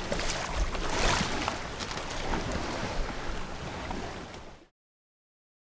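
Wind on the microphone and water sloshing around a fishing boat, with a few light knocks; it fades out and cuts to silence about four and a half seconds in.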